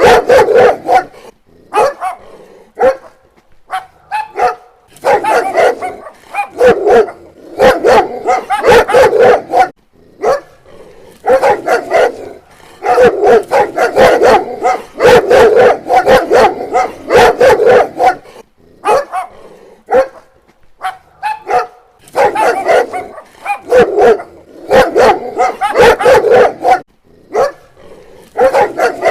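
A dog barking in rapid runs of barks, bouts of one to three seconds with short pauses between them.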